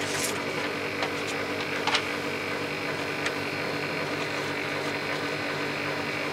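A small motor-driven machine running with a steady hum. It starts abruptly at the opening, and a few faint clicks sound over it.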